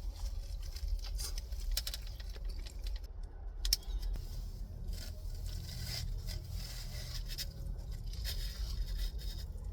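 Small scraping, crackling and tearing noises of someone handling and eating a brisket sandwich, over a low steady hum.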